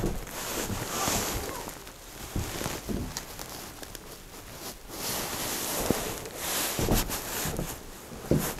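Rustling and handling noise from a handheld camera being moved about, with several scattered soft knocks and thuds like footsteps and objects being touched.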